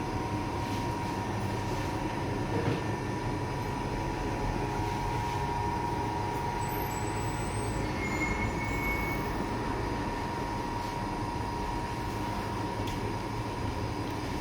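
Steady low rumble of bakery equipment running, with a thin, steady high whine and a few faint clicks.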